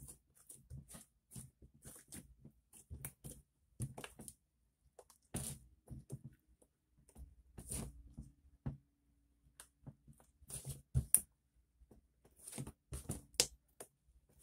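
Glossy slime being pressed, folded and kneaded by hand on a tabletop, giving off an irregular run of short wet clicks and pops, with a couple of louder snaps near the end.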